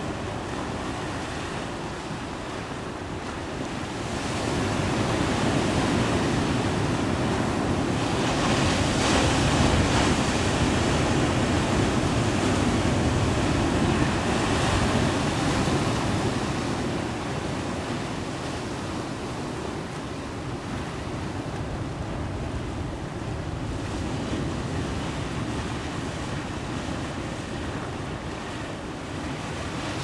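Ocean surf breaking and washing over a rocky shore, a steady rushing noise that swells louder about four seconds in and eases off again after about sixteen seconds.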